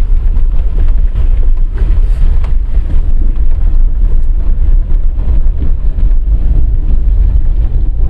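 Low rumble of a moving vehicle driven over a broken road surface, with heavy wind buffeting on the microphone.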